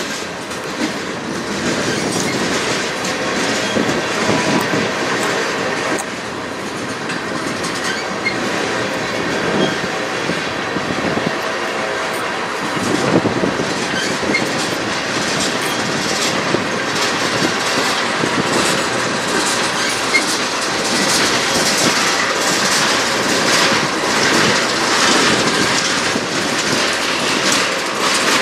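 Freight cars of a long, slow-moving manifest train rolling past, the wheels clicking over the rail joints in an uneven clatter that grows busier in the second half.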